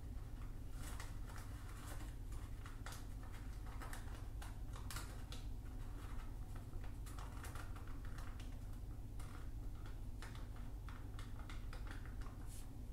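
Folded origami paper of a masu box rustling and crackling as hands press and slide the pieces together, with irregular small clicks throughout over a steady low hum.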